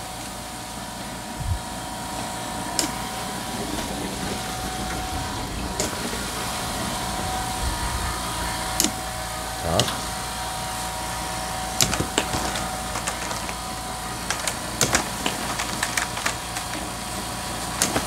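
PAPA-MULTI BOX pipe cleaner firing timed air pulses ('punch') into a water-filled heating pipe. A sharp knock comes about every three seconds, with a few extra knocks between, over a steady mechanical hum.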